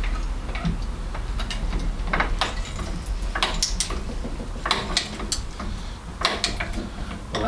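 Hydraulic trolley jack being worked to lift a car: a series of irregular metallic clicks and clanks over a low steady hum.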